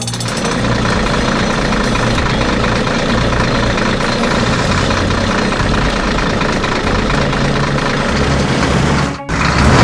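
Heavy truck engine running steadily with a low rumble, dropping out briefly near the end.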